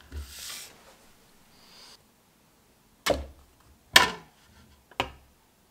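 Thin flexible steel build sheets handled on a 3D printer's magnetic bed. A brief scraping rustle as a sheet is slid off, then three sharp metallic clacks about a second apart as a steel plate is set down and snaps onto the magnetic base. The middle clack is the loudest.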